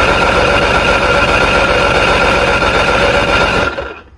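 Electric starter cranking an inline-six outboard motor for a compression test on cylinder number three, with rapid even pulses and a steady whine. It cuts off suddenly about three and a half seconds in.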